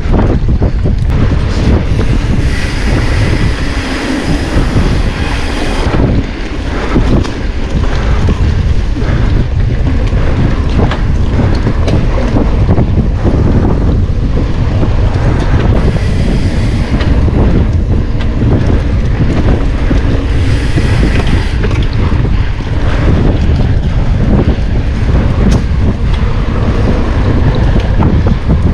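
Wind buffeting the microphone during a mountain-bike ride: a loud, steady rumble with many small knocks and rattles scattered through it.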